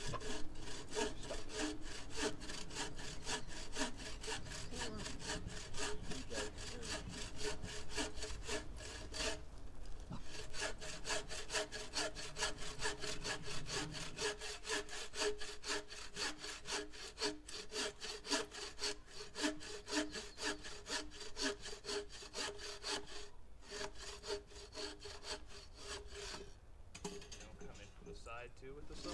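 Hand saw cutting through a wooden log in steady back-and-forth strokes, with brief pauses about ten seconds in and twice near the end.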